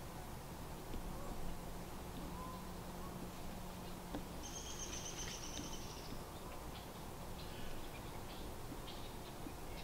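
A bird's rapid rattling trill about four and a half seconds in, lasting a second and a half, followed by scattered short high chirps, over a faint low steady hum.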